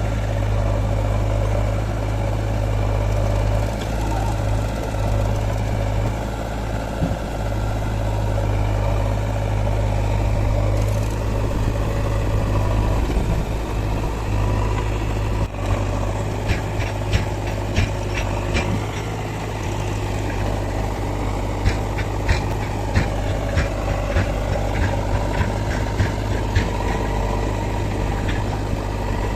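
Diesel engine of a backhoe loader and tractor working, with a steady low running hum. In the second half, a string of short sharp knocks and clanks comes about one or two a second.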